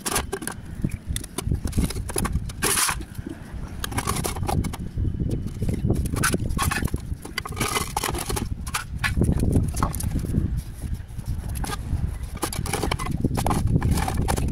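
Terracotta clay roof tiles being set back in place by hand, with repeated clinks, knocks and scrapes of tile on tile.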